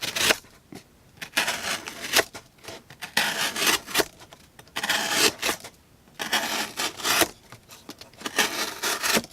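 Bestech Fanga folding knife blade slicing through cardboard in a run of about six separate cuts, each lasting up to about a second, with short pauses between them.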